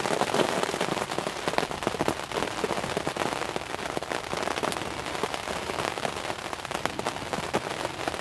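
Heavy rain falling on a hunting ground blind's fabric, a dense, steady patter of sharp drop hits.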